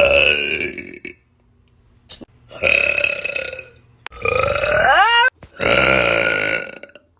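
A run of long, loud burps from women, one after another. The first trails off about a second in, and three more follow with short silences between them; the middle one of these rises steeply in pitch.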